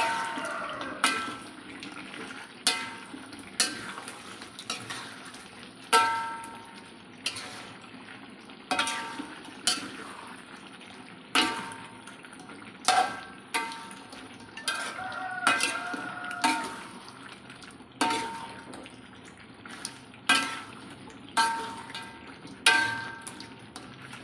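Metal spatula knocking and scraping against a metal wok while stirring chicken pieces in thick sauce, roughly once a second at an uneven pace. Each knock rings briefly.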